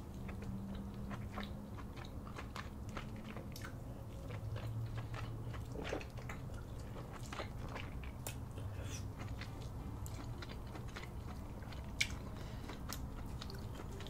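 Mouth sounds of a person chewing and biting into seafood boil coated in cheese sauce: many small wet clicks and smacks. One sharp click stands out near the end.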